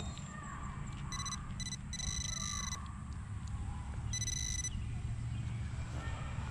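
Metal detector beeping on a target with a high-pitched tone: two short beeps, a longer one, then another about two seconds later, over a steady low rumble.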